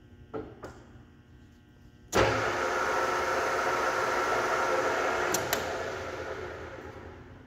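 EMCO Maier Maximat V13 lathe with its 3 hp motor: a couple of light clicks from the controls, then the spindle and geared headstock start with a sudden clunk about two seconds in and run with a steady gear whir. After two sharp clicks near the end of the run, the spindle winds down gradually as it coasts to a stop.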